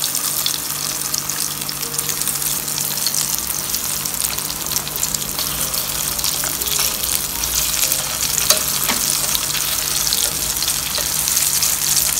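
Breaded chicken nuggets shallow-frying in hot oil in a pan: a steady sizzle with dense fine crackling.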